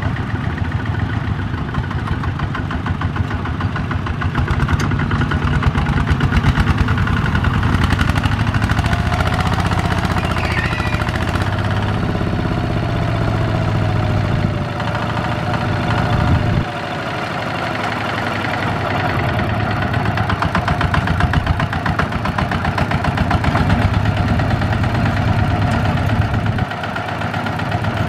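Single-cylinder diesel engine of a two-wheel walking tractor idling with a rapid, even chugging beat.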